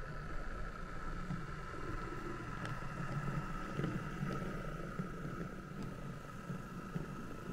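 H0e narrow-gauge model of an ÖBB class 2095 diesel locomotive running along the track: a steady whine over a low rumble, with a few faint clicks.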